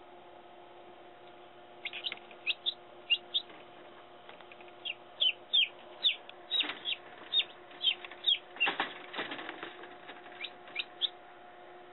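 Chicken chicks peeping: short, high notes that fall in pitch, in runs starting about two seconds in and thickest in the middle. Under them is the steady hum of the Little Giant forced-air incubator's fan. A short spell of knocks and rustling comes about nine seconds in.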